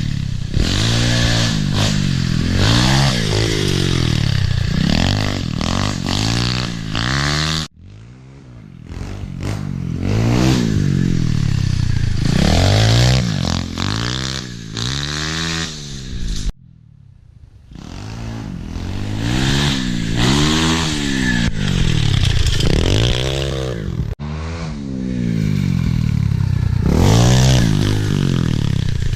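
Pit bike engine revving up and down as it is ridden, its pitch repeatedly climbing and falling with throttle and shifts. The sound breaks off abruptly three times.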